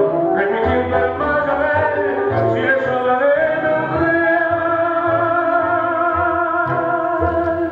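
Tango song with a singer over the orchestra and a regular bass beat, the singer holding one long note from about three seconds in.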